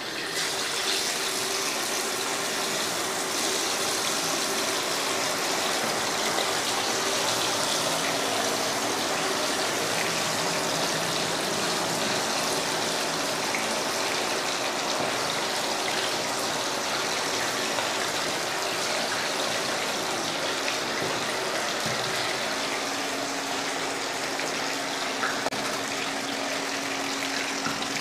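Marinated chicken pieces deep-frying in hot oil in a stainless steel pan: a loud, steady sizzle that starts as the pieces go in.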